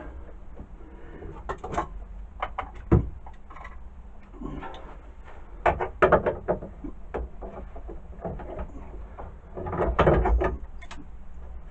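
Metal clinks and knocks of a wrench being fitted and turned to tighten the back nut on a drill-driven wood lathe attachment, with scattered handling clunks and a few heavier knocks.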